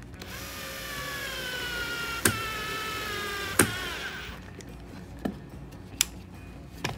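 Cordless drill with a Phillips bit driving a drywall screw into pine: a steady motor whine that sinks slowly in pitch as the screw goes in, with two sharp clicks partway through. The drill stops about four seconds in, and a few light clicks follow.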